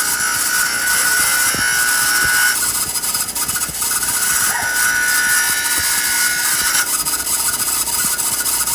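A small power tool grinding into a steel roller chain to cut it shorter. It is a continuous harsh grind with a whine that sounds for the first couple of seconds, drops away, comes back from about four seconds in, and fades near the end as the tool bites into the steel.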